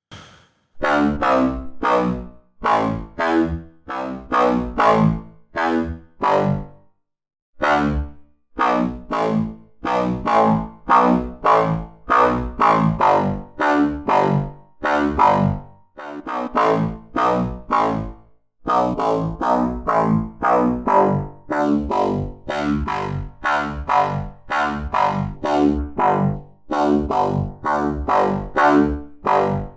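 FM synth bass patch built in FL Studio's Sytrus, playing a rhythmic run of short notes at about two a second. Each note opens bright and quickly closes down, the sweep of a band-pass filter driven by an envelope, with distortion, chorus and reverb on the patch. Short pauses come about seven seconds in and again near sixteen and eighteen seconds.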